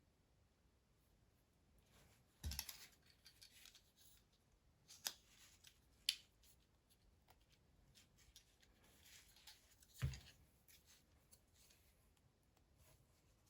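Small plastic key fob parts being handled and pressed into a new case: four sharp clicks and knocks, two of them with a dull thud, with faint scraping of plastic between.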